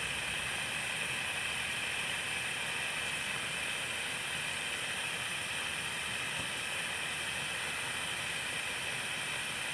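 A steady, even hiss with no other sound in it.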